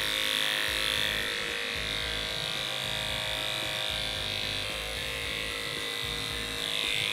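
Electric pet hair clipper buzzing steadily as it shaves through a cat's fur.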